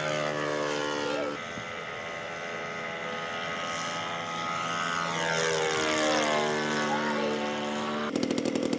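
Radio-controlled scale model airplane engine running in flight, its pitch sliding down and then up again as it flies past. About eight seconds in, a louder, rapidly pulsing engine sound cuts in abruptly.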